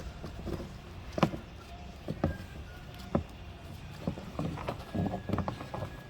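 Scattered clicks and knocks of hands working a seat belt retractor, pulling the belt webbing out through it, with a quicker run of clicks near the end.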